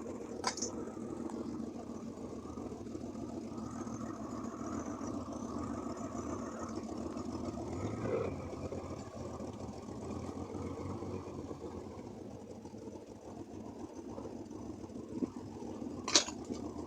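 1987 C4 Corvette's 5.7-litre V8 running steadily at idle. A sharp crack sounds near the end, louder than the engine.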